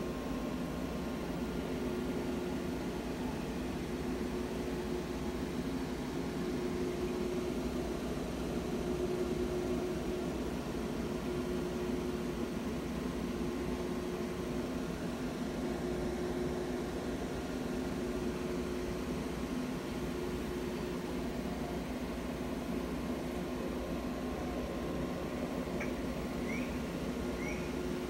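Steady mechanical hum with a hiss beneath it, like a fan running. A few faint short squeaks come near the end.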